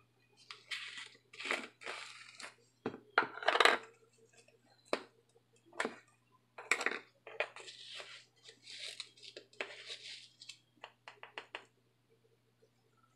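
A metal measuring spoon scooping nutritional yeast from its jar and tipping it into a glass mixing bowl: a string of short clinks, scrapes and rustles.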